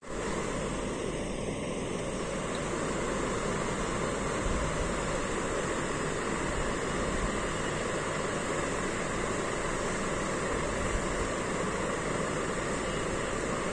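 Steady rushing background noise, even and unchanging, with no distinct clicks or other events.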